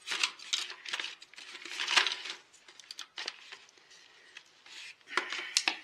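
Irregular knocks, clicks and scrapes of a Husqvarna 380CD chainsaw's removed top cover being handled against the saw body and tools, loudest about two seconds in and near the end.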